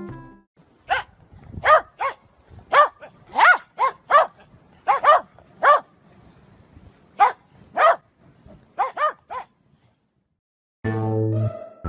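A dog barking: about a dozen short, high barks in an irregular run, then stopping.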